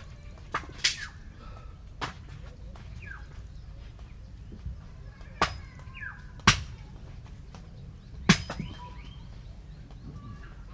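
Sharp knocks, about six at uneven intervals, the two loudest past halfway, with birds chirping between them.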